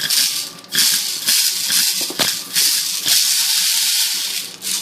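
Compressed air from an air compressor hissing out through a homemade airsoft gun in about six short blasts, the last one held for over a second.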